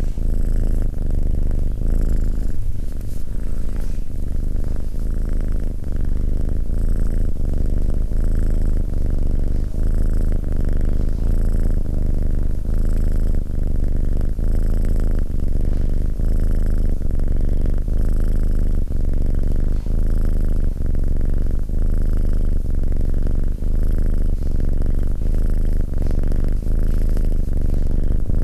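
Domestic cat purring steadily, close up, swelling and easing in a regular breathing rhythm about once every second or so.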